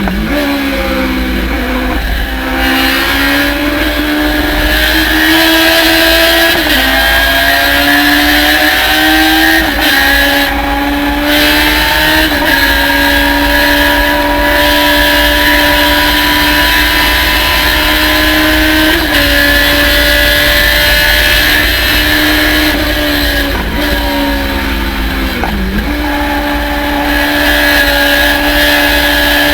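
Thunder Roadster race car's engine running hard under racing load. Its note climbs slowly through long pulls, breaks briefly at gear changes, and falls away with quick blips a little before the end before climbing again. Wind rush sounds throughout.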